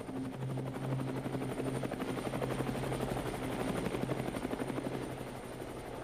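Car engine running steadily while driving, heard from inside the cabin, with road noise and a rapid fluttering throb.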